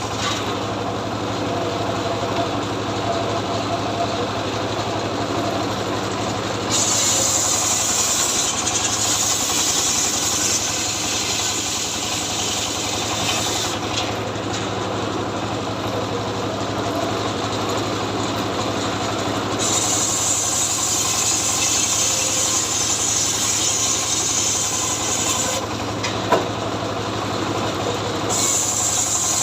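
Two-stroke chainsaw engine running continuously, its bright upper hiss coming and going several times as the saw works. A single sharp knock sounds near the end.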